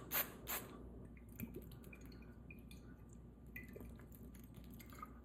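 Two quick sharp strikes in the first half second, then faint small clicks and soft wet squishing of moist chopped food being handled.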